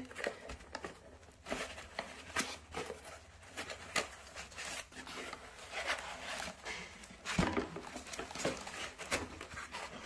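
Hands rummaging in a cardboard box's foam packing and lifting out a smart lock's parts: scattered light knocks, scrapes and rustles, with one sharper knock about seven seconds in.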